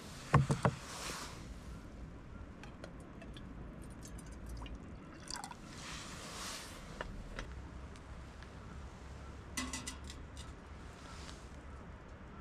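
Liquid being poured and trickling, with a quick run of sharp clicks about half a second in and a few light clinks near the end.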